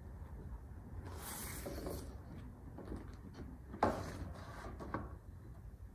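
Paper picture card sliding in the wooden kamishibai stage as it is pulled out to change the picture: a soft swish about a second in, and another with a sharp start just before four seconds that fades quickly.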